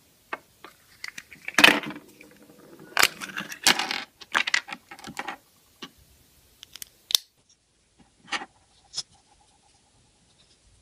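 Hands handling a plastic surprise-egg capsule and small plastic toy pieces: irregular clicks, clatter and scraping, busiest in the first half and sparser toward the end.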